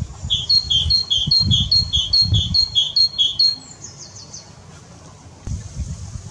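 A bird singing: a run of about eight repeated two-part whistled notes, roughly two and a half a second, ending in a quick falling trill. Low dull thumps sound underneath.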